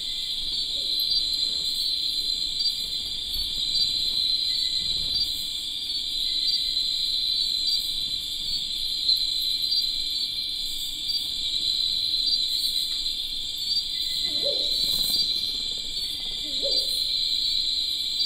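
Steady, high-pitched chorus of night insects such as crickets, trilling without a break, with a few faint low sounds near the end.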